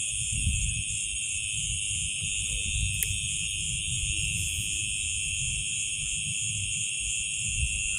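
A chorus of crickets and other night insects: a steady, high-pitched shrill that does not let up. Under it is a low rumble, with a single click about three seconds in.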